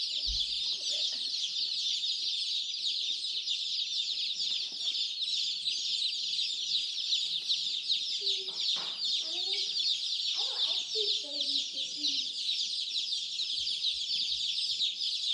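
A brood of week-old chicks peeping continuously, many high, short cheeps overlapping into one steady chorus.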